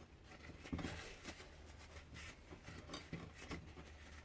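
Faint handling noises of diesel heater parts being cleaned: light scattered clicks and rubbing, over a low steady hum.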